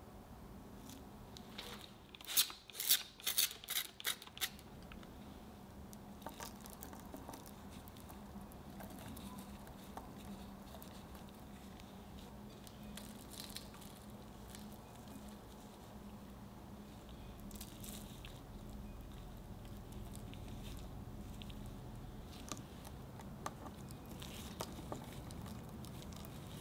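A trigger spray bottle misting water onto piped choux batter in about six quick hissing squirts. Then a gloved hand presses crumbly butter-and-almond crumble onto the puffs, giving soft scattered rustles and small crackles of crumbs.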